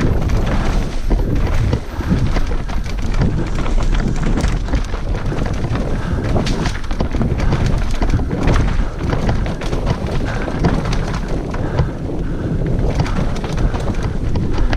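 Mountain bike descending a rooty trail: tyres rumbling over dirt and roots, with frequent knocks and rattles from the bike, and wind on the microphone.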